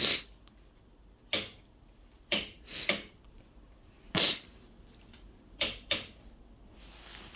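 A person sniffing hard several times through a runny nose: about six short, sharp sniffs at uneven intervals.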